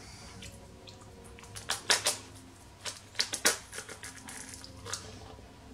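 Hard crispbread crunching as it is bitten and chewed: sharp crackles in a cluster about two seconds in, another around three seconds, and a last one near the end.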